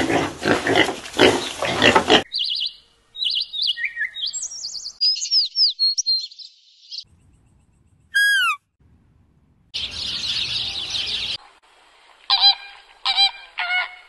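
A run of different animal sounds one after another: pigs grunting for about two seconds, then small birds chirping, a single high call falling in pitch, a couple of seconds of hissing noise, and flamingos honking in short repeated calls near the end.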